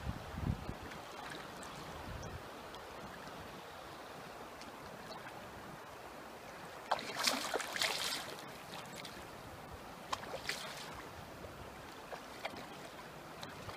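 Steady rush of river water, with a hooked steelhead thrashing and splashing at the surface for about a second and a half, seven seconds in. A couple of low bumps near the start.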